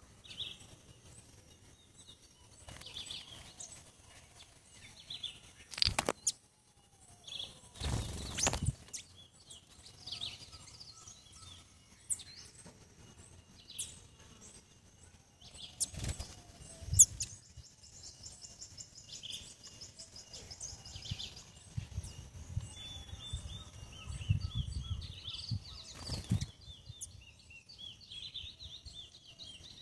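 Small songbirds chirping with short, high notes, with a quick run of high notes about halfway through. Several sharp flutters or bumps break in as birds come and go at the feeder, the loudest just past halfway.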